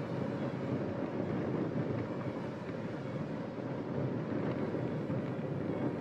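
Steady, even rumble of a vehicle travelling along a gravel road: tyre and road noise with no distinct engine note.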